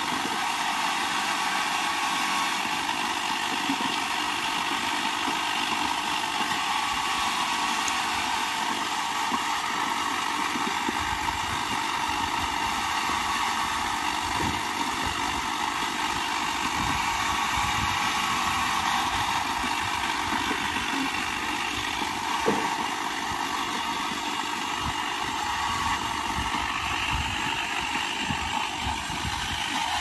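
Circular saw bench running steadily as branches are fed through and cut into firewood lengths, with scattered knocks of wood from about a third of the way in, one sharper knock a little past the middle.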